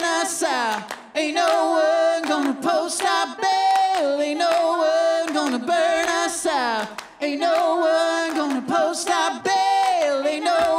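A cappella breakdown of a live band song: several voices singing a held melody in harmony over steady hand claps, with the drums and bass dropped out.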